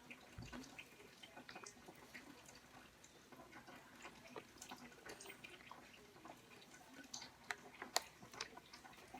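Faint, irregular small clicks and scratches of a mechanical pencil tracing a drawing on paper, with one sharper tick about 8 s in.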